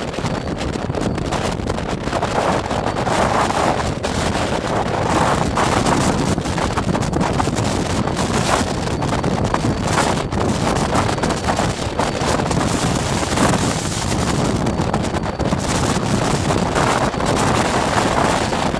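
Strong gusting wind buffeting the microphone: a loud, continuous rushing roar that swells and eases every few seconds.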